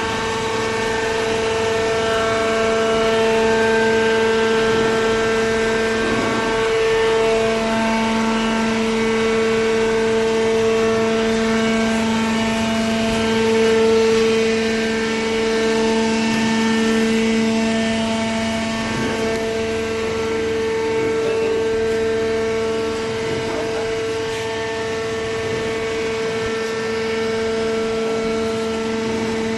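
Hydraulic paper baler's motor-driven pump running, a steady humming whine with overtones that shift slightly every few seconds.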